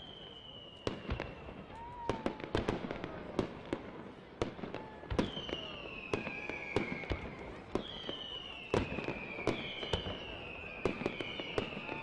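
Aerial fireworks going off: a steady run of sharp bangs and crackles, with four whistling shells from about five seconds in, each whistle falling in pitch over about a second.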